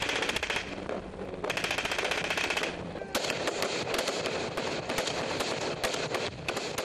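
Sustained automatic gunfire in a firefight: rapid strings of shots, briefly thinning about a second in and again near three seconds.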